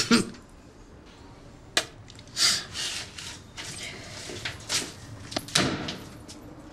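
A series of separate clunks and clattering knocks, with a longer scraping rattle about halfway through, as hard objects are handled and moved on a cluttered workshop bench.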